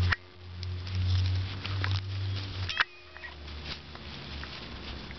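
Dachshund puppies moving about in grass: light rustling and pattering with scattered small clicks. A low rumble runs through the first half and cuts off with a sharp click about three seconds in.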